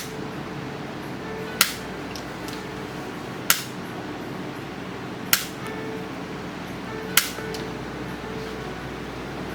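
Spring-loaded chiropractic adjusting instrument firing, a sharp click roughly every two seconds, over background music.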